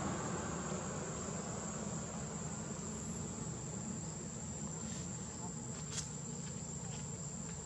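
Steady, high-pitched drone of insects in the surrounding trees, holding one unbroken tone, with two faint clicks in the second half.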